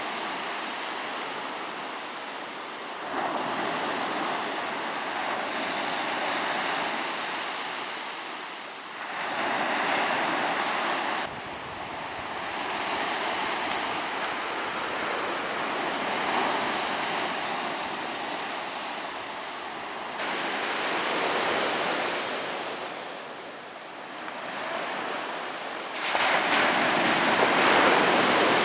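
Ocean surf: waves breaking and washing up a beach in a continuous rush that swells and recedes every several seconds. The sound changes suddenly a few times, and is loudest near the end.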